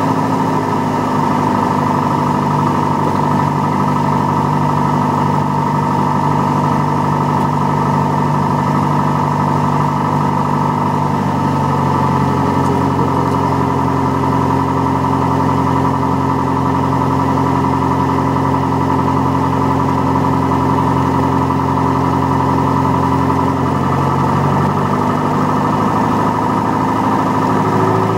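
Single-engine light aircraft's engine and propeller running steadily at low power, heard from inside the cabin. The engine note drops slightly about eleven seconds in and rises back near the end.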